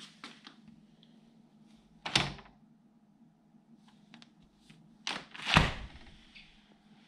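A few dull knocks with faint clicks between them, over a low steady hum: one knock about two seconds in, and a louder pair about five seconds in.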